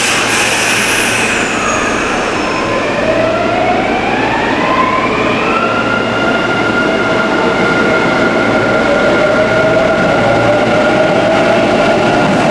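Electric train on the Hanshin Namba Line pulling away: the traction motors' inverter whine climbs in pitch over about three seconds as it accelerates, then holds at a steady high tone over the rumble of the wheels.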